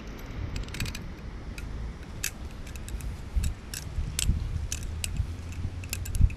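Arctic Beta balisong trainer being flipped: irregular sharp clicks and clacks as the handles and blade swing around and strike each other.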